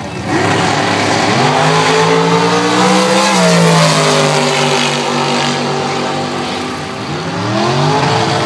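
Two junior dragsters launching side by side and accelerating down the drag strip. Their engines climb in pitch for about three seconds, then drop and run on at a lower, steadier pitch as they go past and away. About a second before the end, an engine rises in pitch again.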